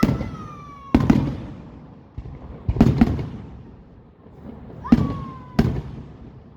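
Fireworks going off: whistling rockets whose high whistle slides down in pitch and ends in a sharp bang, twice, among about six bangs in all, some in quick pairs.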